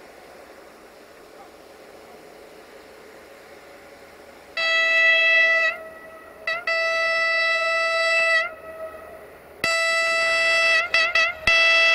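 Siemens Desiro diesel multiple unit sounding its horn as it approaches: after about four and a half seconds of faint steady noise, a series of loud single-pitched blasts, long ones broken by a few quick toots, each ending with a slight upward flick in pitch.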